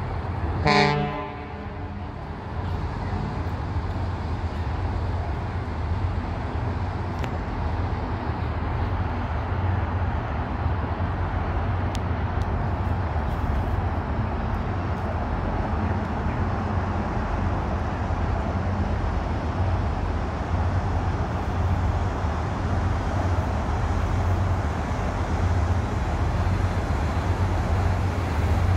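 A single short horn blast about a second in, deep with many overtones. It is followed by a steady low drone under an even rushing noise.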